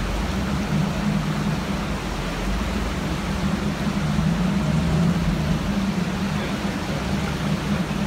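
Fast, high creek water rushing steadily, with a Jeep's engine running at low revs as it crawls over the rocks, its low note wavering.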